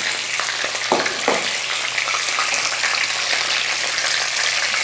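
Chicken pieces sizzling steadily as they brown in hot oil in a frying pan, with two sharp knocks of wooden spatulas against the pan about a second in.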